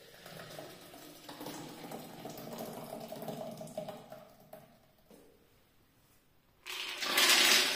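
Thick blended corn batter pouring and splattering from a plastic blender jar into a plastic bowl for about four seconds. Near the end comes a louder burst of noise about a second long.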